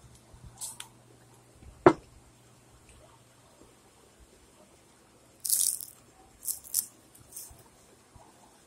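A sharp knock about two seconds in, then several crisp, hissy crunches a few seconds later as bites are taken from a puffed rice cake spread with peanut butter and jelly.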